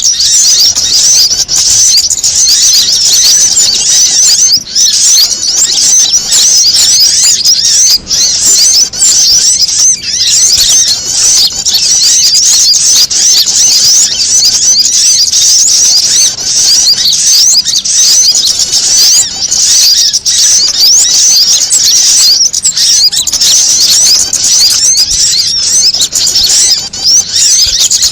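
Bird-lure recording of small songbirds: a loud, unbroken chatter of rapid high-pitched chirps and trills from several birds at once. It mixes prinia (prenjak), female sogon and kamande calls with the panicked alarm calls of sunbirds, meant to draw wild small birds in.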